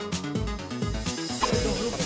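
Electronic background music with a steady beat and deep kick drum; a hissing sweep builds near the end.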